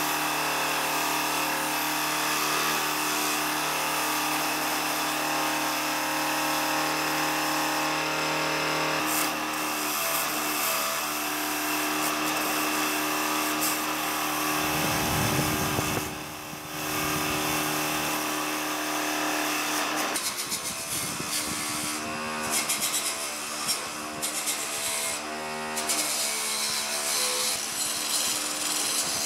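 Bench grinder with a wire brush wheel running with a steady motor whine while its wire bristles scrape rust off steel bicycle parts: handlebar, frame, then a wheel rim. The scraping breaks off briefly about halfway through and turns rougher and more uneven in the last third.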